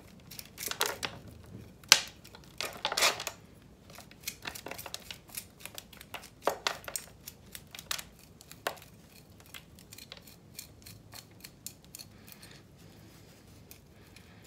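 A bonsai root rake combing through an Eleagnus root ball, scraping the roots and knocking loose compost and pozzolan grit that rattles down into the pot below. The strokes are irregular, with several louder ones in the first few seconds and another about six and a half seconds in.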